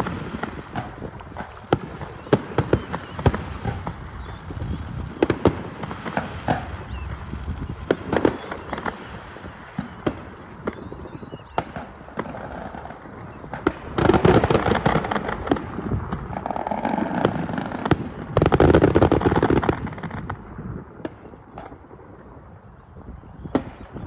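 Fireworks display: a run of sharp bangs and pops, with two longer, louder spells of dense crackling about fourteen and eighteen seconds in.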